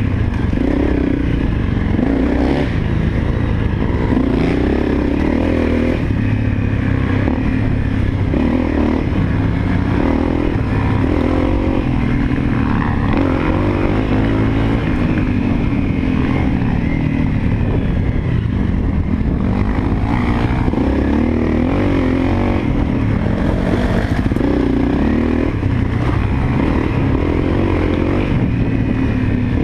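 Honda CRF250L dirt bike's single-cylinder four-stroke engine running as it is ridden, its pitch rising and falling every few seconds with the throttle.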